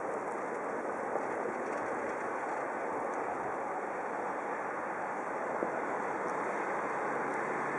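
Steady noise of road traffic on snow-covered streets, a coach and cars driving through a crossroads. A low engine hum comes in near the end.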